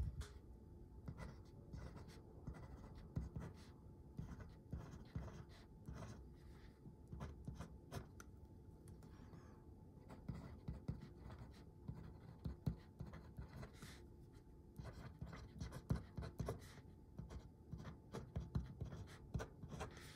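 Lamy 2000 fountain pen with a medium nib writing on dotted paper: faint, irregular scratching and small ticks as the nib forms the letters.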